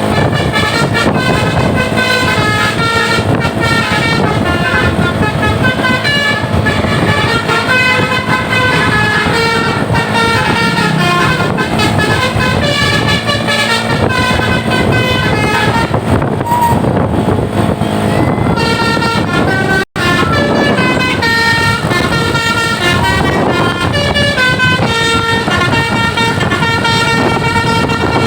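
A tour bus's basuri musical air horn playing a melody continuously, one note after another, with a momentary cut-out about two-thirds of the way through.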